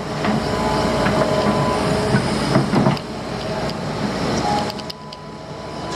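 Excavator working: its diesel engine running under load, with steady metallic squealing and clanking from the machine as it moves its bucket. It is loudest in the first half and eases off about three seconds in.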